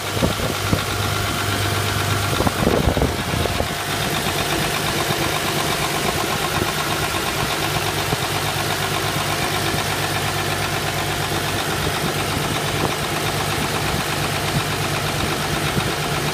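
Duramax diesel engine idling steadily, heard close up in the open engine bay, with a brief rustle of handling noise about three seconds in.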